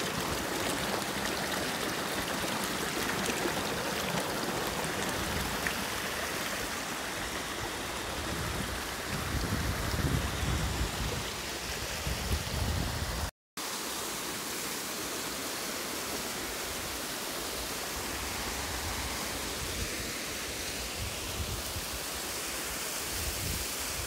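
Steady rushing and hiss of a mountain stream's water spilling over rocks below a small waterfall. Uneven low rumbling joins for a few seconds about halfway, then the sound drops out for an instant before the rushing carries on.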